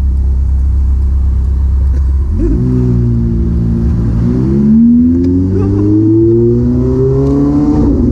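Ferrari F430 Spyder's naturally aspirated V8, fitted with catless resonated test pipes, running low at first, then accelerating hard from about two seconds in. Its note climbs steadily, dipping briefly at gear changes about four seconds in and near the end.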